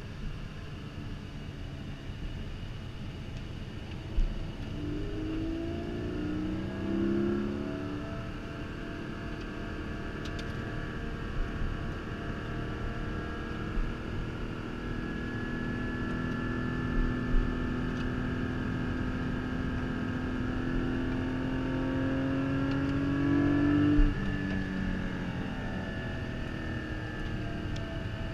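Onboard sound of a 2022 Porsche Cayman GT4's naturally aspirated flat-six engine being driven hard on track, heard inside the cabin. The engine pitch rises and falls with gear changes, holds a long, slowly rising pull through the middle, then drops away near the end, with a few short thumps along the way.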